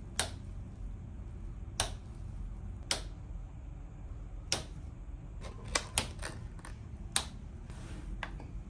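Seven sharp clicks, unevenly spaced, from a cabin wall light switch and air-conditioner control-panel buttons being pressed, over a steady low hum.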